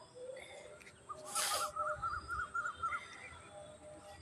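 A short, sharp burst of breath through a nose being tickled to provoke a sneeze, with a bird's quick trill of about eight notes sounding at the same time.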